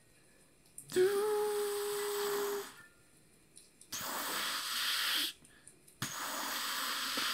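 A voice hums one held, breathy note for almost two seconds, starting about a second in. Two longer breathy hissing sounds follow, each about a second and a half long.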